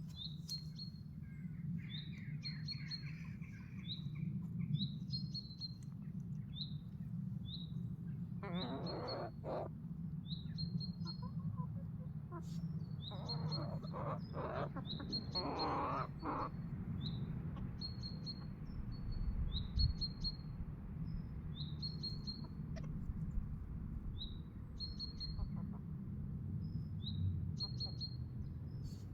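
Bird chirping over and over, short high chirps about once or twice a second, over a steady low hum. A few louder, harsher calls come about a third of the way in and again around the middle.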